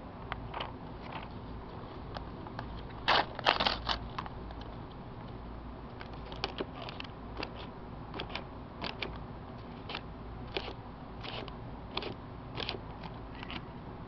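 Paper crinkling and rustling as it is handled, in short crackly bursts, loudest about three seconds in.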